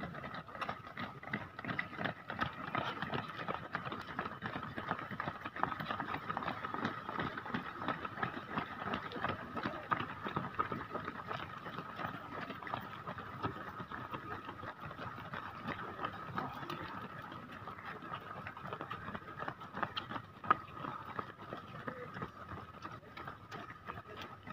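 Footsteps of many marathon runners on the road surface, a dense irregular run of light footfalls, with a steady high tone underneath.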